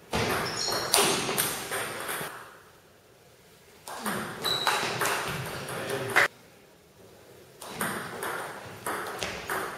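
Table tennis rallies: the celluloid ball clicking off the rackets and bouncing on the table, in three stretches of play with short lulls between.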